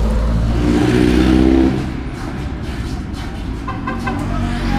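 A motor vehicle engine running close by, its sound dropping away after about a second and a half, leaving street traffic noise with a few light clicks near the end.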